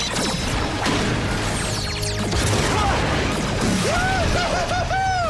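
Action-scene soundtrack: music under explosion and crashing impact sound effects, with a few short rising-and-falling tones near the end.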